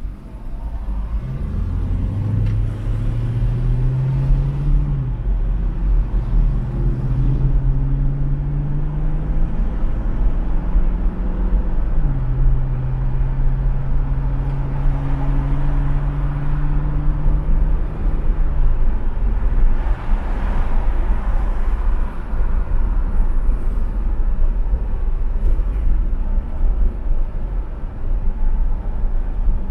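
Car engine pulling away from a standstill and accelerating. Its pitch climbs and drops at two upshifts, then holds steady at cruising speed, under a constant low rumble of road noise heard from inside the cabin. There is a brief rush of noise about twenty seconds in.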